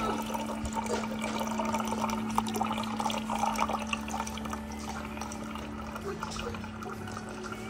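Countertop water dispenser running a thin stream of water into a plastic tumbler, splashing steadily, with a constant hum underneath.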